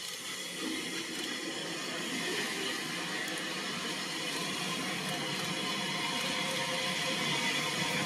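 Steady rushing hiss at a standing steam locomotive, growing slightly louder toward the end.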